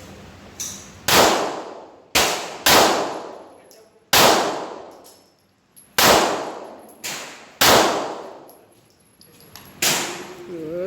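Single gunshots on a shooting range: about eight sharp cracks at uneven spacing, each ringing off quickly, with a couple of fainter shots between them.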